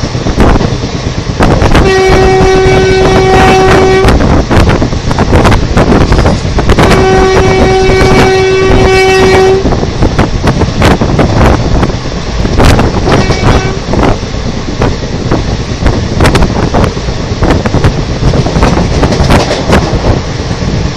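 Twin-tone horn of a WAP-4 electric locomotive blowing three times: two long blasts of about two seconds each, then a shorter, fainter one. Under the horn runs the loud rumble and clatter of the passing express train's wheels on the rails.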